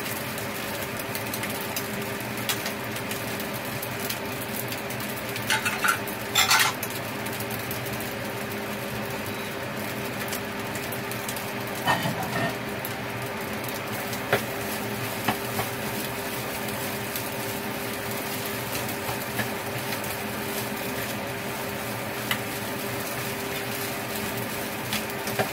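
Fried rice sizzling steadily in a frying pan, with a spatula clattering and scraping against the pan a few times, loudest about six seconds in. A faint steady hum runs underneath.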